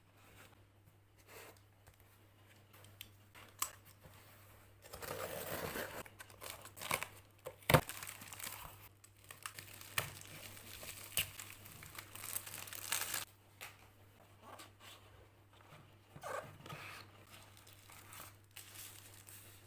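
Packaging being torn open and crinkled by hand, with scattered clicks and rustling that is busiest in the middle stretch, where one sharp click stands out.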